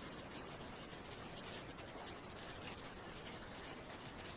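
Faint crinkling and rustling of a small plastic packet being handled and opened by hand.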